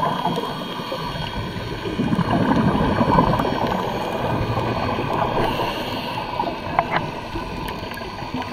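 Underwater scuba ambience heard through a camera housing: a diver's exhaled regulator bubbles gurgling and rumbling, swelling and fading every second or two, with a few light clicks about seven seconds in.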